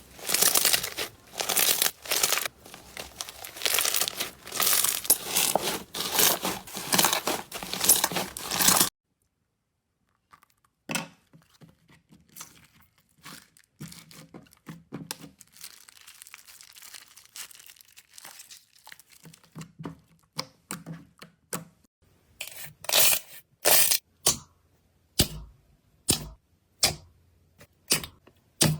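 Slime being handled close to the microphone: dense crackling and tearing for about nine seconds, which stops abruptly. After a short silence come scattered sharp pops and clicks, louder near the end.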